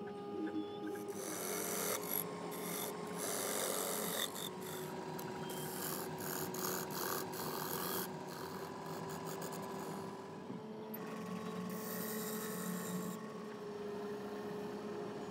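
Turning tool scraping the inside of a segmented wooden bowl as it spins on a lathe. The scraping swells and fades as the tool is worked across the wood, over a steady motor hum.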